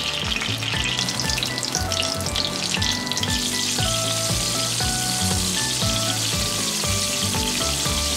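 Tofu cubes sizzling steadily as they shallow-fry in hot oil in a frying pan, with background music playing underneath.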